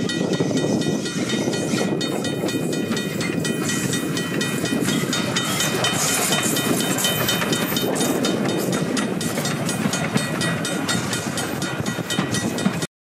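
1887 D-class steam tank locomotive D140 running past with a carriage in tow: a steady rush of running noise with many short sharp clicks and a few thin high tones over it. It cuts off suddenly near the end.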